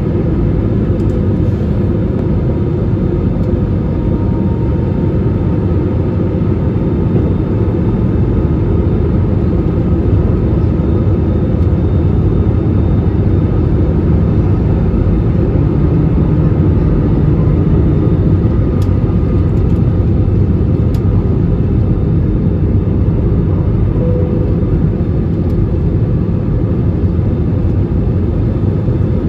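Airliner cabin noise beside the wing engine in flight: a steady jet engine and airflow rumble with faint steady whining tones over it.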